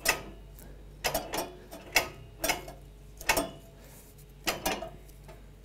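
Allett Buckingham cylinder mower's reel being turned by hand, its blades snipping paper against the bottom blade in about a dozen short, sharp, irregularly spaced cuts. The cylinder is lightly brushing the bottom blade, the light contact that gives a clean scissor cut.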